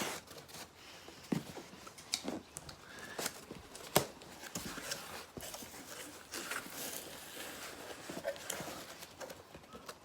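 A cardboard box being opened and its packing material rustled and handled: an uneven rustle with scattered taps and knocks, the sharpest about four seconds in.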